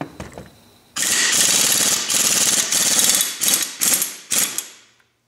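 Impact wrench hammering on a TRX300 final drive's internal pinion retainer nut through a special socket tool, breaking the nut loose. It runs in one long burst of about two and a half seconds, then three or four short bursts.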